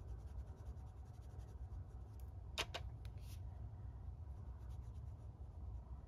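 Quiet strokes of a fine paintbrush on watercolour paper over a low steady hum, with a few light clicks about two and a half to three and a half seconds in.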